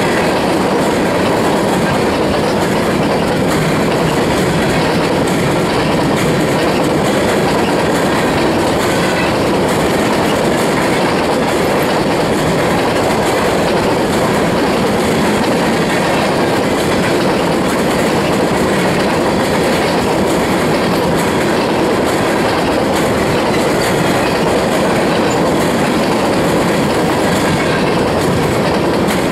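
Freight train's covered hopper cars rolling past: a steady, loud rush of steel wheels on rail with continual clicks from the wheels running over the track.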